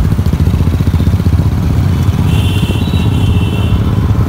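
Motorcycle engine running while the bike is ridden, a loud steady low rumble of rapid firing pulses, heard from on or right behind the bike. A faint high-pitched tone sounds briefly in the middle.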